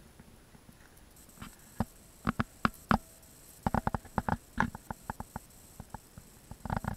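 Irregular sharp clicks and crackles in uneven clusters, starting about a second and a half in and thickest about halfway through. They come from the person filming moving around the stones: their steps and the handling of the camera.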